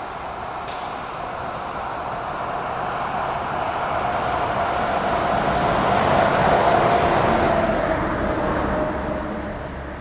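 A box truck passes on the road, its road noise swelling to a peak about six to seven seconds in and then fading. Behind it runs the steady tone of a Federal Signal Model 7B single-phase siren, slowly dropping in pitch.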